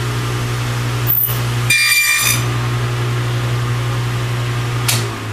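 Table saw running with a steady motor hum, a brief high-pitched ringing sound about two seconds in, then switched off near the end and starting to wind down.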